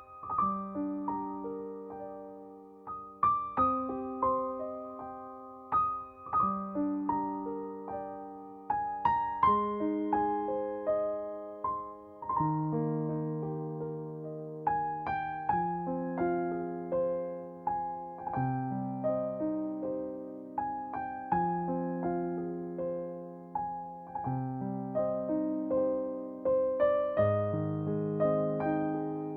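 Background music: a slow solo piano piece of plucked-sounding notes and gentle chords, each note struck and left to die away.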